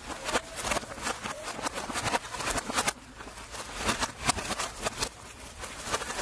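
Rapid, irregular crackling and knocking as roasted sotol heads are handled and tossed at a steaming pit oven.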